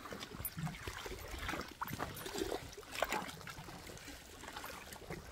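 Lake water lapping and trickling at the shore in irregular small splashes.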